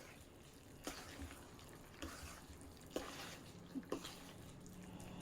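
A fork mashing and mixing bean dip in a bowl: soft clicks of the fork against the bowl about once a second, four in all.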